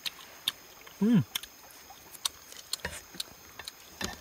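Eating sounds: chopsticks picking at grilled food on a banana leaf, with scattered sharp clicks and ticks. A short hummed 'mm' comes about a second in.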